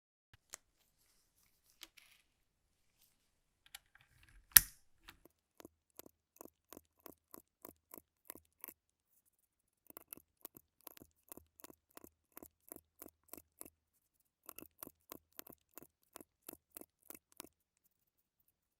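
Keys of a 60% mechanical gaming keyboard being pressed one after another at a steady pace, about three to four clicks a second, in three runs with short pauses between. A single loud knock comes shortly before the first run.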